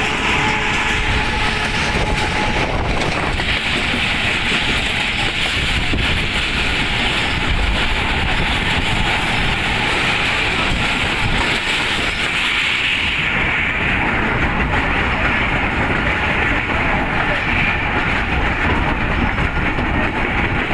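Passenger train coaches running at speed, heard from a coach window: a steady rumble of wheels on rails mixed with the rush of air.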